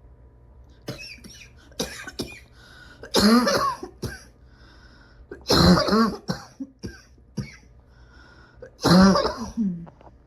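A person coughing hard in three loud fits a few seconds apart, with shorter coughs between them: a heavy, persistent cough that hardly lets a breath go by.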